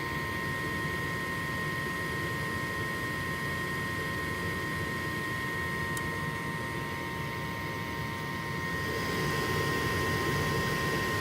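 Small gas furnace running, a steady whir with a steady high-pitched whine over it. It grows a little louder about nine seconds in. No abnormal noise comes from its induced-draft fan at this moment.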